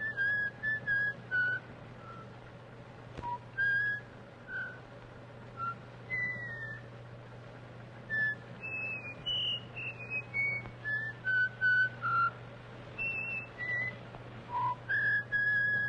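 A man whistling a tune in a string of short, clear notes with brief pauses, over a steady low hum.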